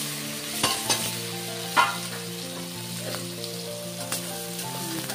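Sliced onions sizzling and frying in hot oil in a metal kadhai, with a metal spatula knocking against the pan a few times, sharpest about two seconds in.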